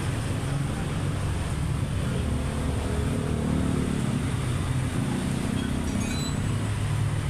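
Low rumble of a motor vehicle engine running, swelling slightly and shifting in pitch partway through.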